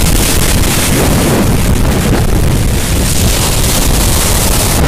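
Strong nor'easter wind gusting across the microphone, a loud steady rumble and hiss, over waves breaking in the surf.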